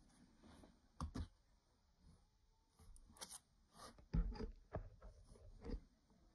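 Hands handling a cardboard box: a few faint taps, scrapes and knocks as the box is gripped and tilted, the loudest knock about four seconds in.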